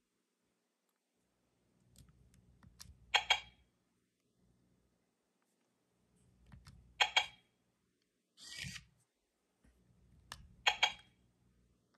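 Plastic clicks from a finger pressing the buttons on a Hasbro i-Dog Amp'd robot dog toy: three quick double clicks a few seconds apart, with faint handling noise. A short rustle comes between the second and third clicks.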